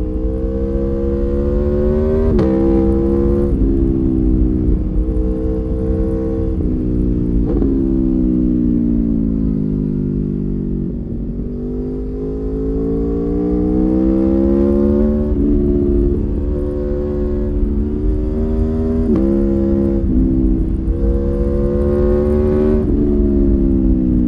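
2019 Aprilia Tuono V4 1100 Factory's V4 engine on its stock exhaust, ridden hard with wind rushing past. The revs climb and drop abruptly at several quick gear changes, which the bike's quickshifter makes. About a third of the way in the revs fall slowly as the bike slows, then build again through more shifts.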